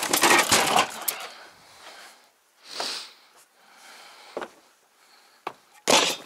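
Rummaging through gear: things clattering and being shifted for about a second, a brief rustle, then a few separate knocks.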